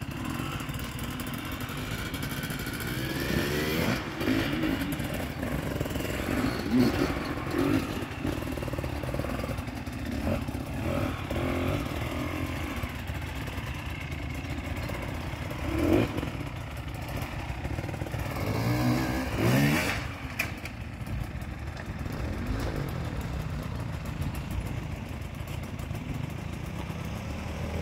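Enduro dirt bike engines revving hard under load on a steep rocky climb. The pitch rises and falls with repeated bursts of throttle, and the loudest revs come past the middle.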